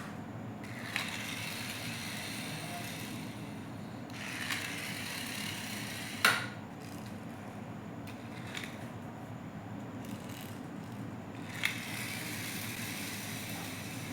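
Plastic toy cars and toy animals being handled: stretches of scraping, rolling noise from wheels on a hard surface, with sharp plastic knocks about a second in, near the middle (the loudest) and near the end, over a steady low hum.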